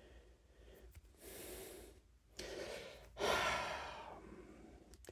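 A man breathing heavily close to the microphone: three long, airy breaths, the last the loudest.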